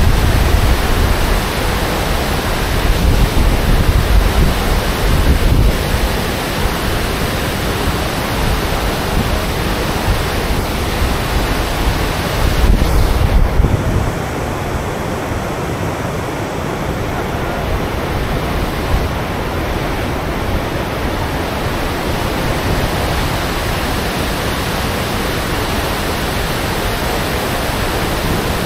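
Gullfoss waterfall: the glacial river rushing and churning over its rocky cascades in a loud, steady wash of water noise. Wind gusts buffet the microphone with a low rumble in roughly the first half.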